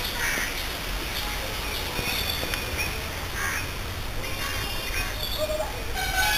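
A bird calling with three short calls over steady outdoor background noise. Background music comes in near the end.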